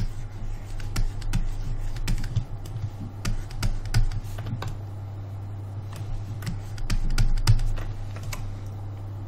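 Irregular clicks and taps from a computer mouse and keyboard while sculpting in Blender, over a steady low hum.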